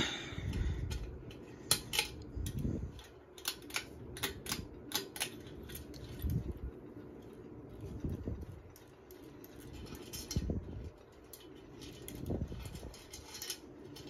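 Hampton Bay Genoa ceiling fan running with its blades spinning, a steady low motor hum, overlaid by sharp metallic clicks and rattles as a hand works at its brass switch housing. The clicks come thick in the first five or six seconds, then thin out.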